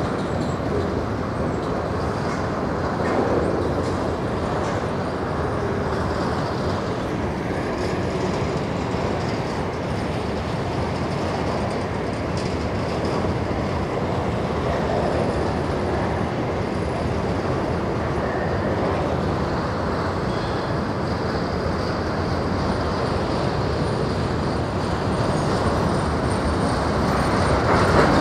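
Empty covered hopper wagons of a grain freight train rolling past: a steady, continuous noise of steel wheels running on the rails, swelling slightly near the end.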